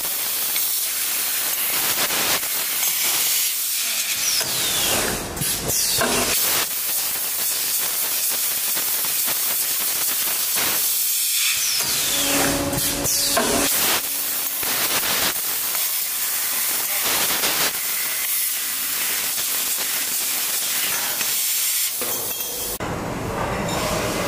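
Fiber laser tube cutter cutting a square metal tube: the assist gas jet from the cutting nozzle gives a loud, steady hiss. A couple of brief falling whistles sound over it.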